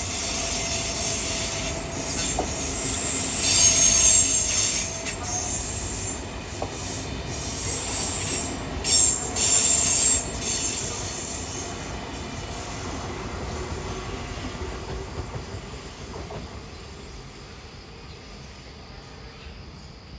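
Train wheels squealing on the rails as a train moves through a station. There are several loud surges of squeal in the first half, then the sound fades away.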